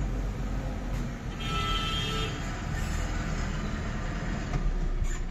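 Fully loaded Tata truck's diesel engine rumbling as the truck drives past and pulls away. A high-pitched tone sounds for about a second, about a second and a half in.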